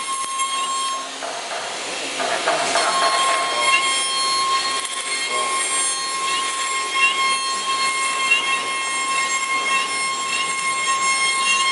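LH-5101-S CNC router's spindle running with a steady high-pitched whine as its bit routes through a wooden board, with the noise of the cut over it. The whine drops out briefly and the cutting noise changes about two to three seconds in.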